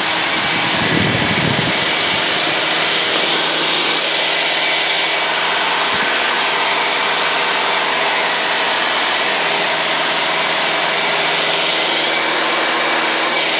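Steady drone of a 1978 Cessna 172N's four-cylinder Lycoming engine and propeller in cruise flight, picked up through the pilot's headset intercom as a constant hum under a steady hiss.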